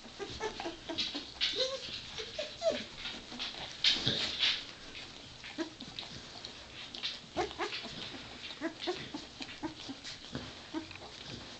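Two-week-old Labrador retriever puppies whimpering and squeaking: many short, overlapping little cries, loudest about four seconds in, mixed with short sharp clicks.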